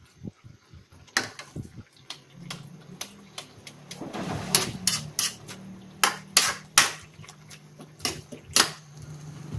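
Metal turner knocking and scraping against a wok while stirring leaves in coconut milk, in sharp, irregular clanks. A low steady hum runs underneath from about two seconds in.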